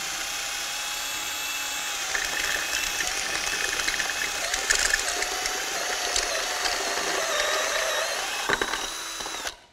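Cordless drill with a step drill bit running steadily, enlarging a hole in a scooter's metal rear frame. The motor whine dips slightly in pitch under load partway through, with a few sharp clicks from the cutting, and stops abruptly near the end.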